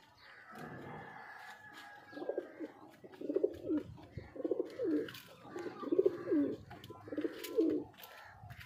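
Domestic pigeon cooing: a run of about five low coos, each under a second long and about a second apart, starting about two seconds in.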